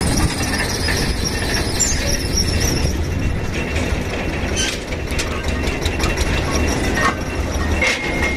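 Borewell drilling rig running, its engine a steady low drone, with high metallic squealing from the rig's hoisting gear and cable. A few metallic clicks come about halfway through, and a steady high ringing tone sets in near the end.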